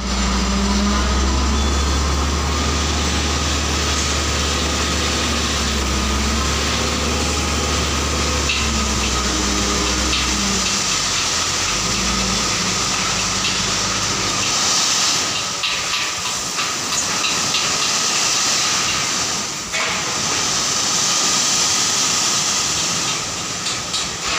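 Hino FM 260 JD dump truck's diesel engine running with a low steady drone as the hydraulic hoist tips the bed up. From about halfway the drone drops away and the gravel load slides off the raised bed and pours onto the pile with a rough, rushing hiss.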